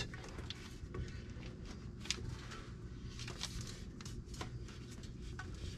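Faint rustling and scuffing of a half-inch rubber hose being pushed by hand onto an oil-pan drain nipple, with a few light clicks, over a steady low hum.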